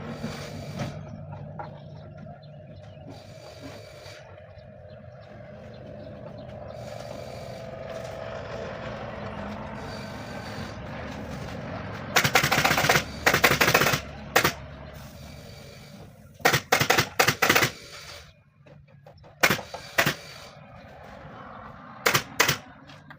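Pneumatic upholstery staple gun firing staples into a chair frame: a steady background for the first half, then several quick bursts of rapid sharp shots and a few single shots.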